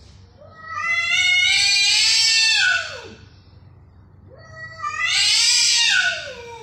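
Two cats squaring off, with two long, loud yowls, each about two and a half seconds, slowly climbing in pitch and then dropping away at the end. These are the drawn-out threat cries of a cat standoff before a fight.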